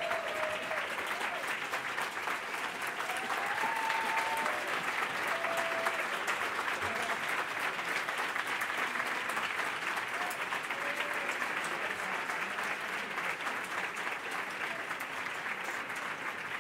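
Large audience applauding steadily in a standing ovation, with a few short calls rising above the clapping. The applause eases slightly toward the end.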